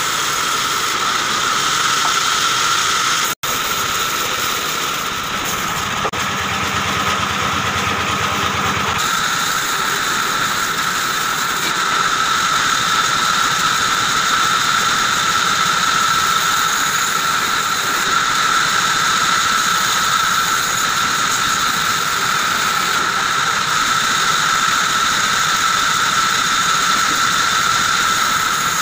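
Band saw running with a steady high-pitched whine while its blade cuts short blocks of wood, with a brief dropout a few seconds in.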